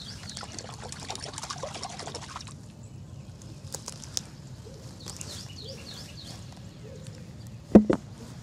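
Small birds chirping in the background. A dense crackling rustle fills the first couple of seconds, and a brief loud sound comes near the end.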